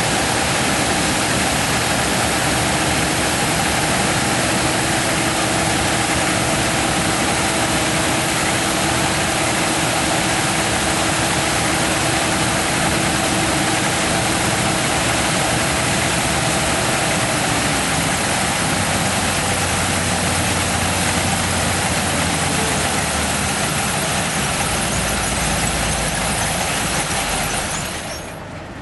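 Combine harvester running in a corn field, a loud steady engine and machinery noise with a faint held hum, which falls away sharply near the end.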